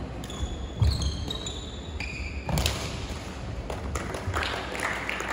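A badminton rally on a wooden court in a large hall: about three sharp racket hits on the shuttlecock in the first three seconds, with players' feet thudding and short high shoe squeaks. The rally then stops.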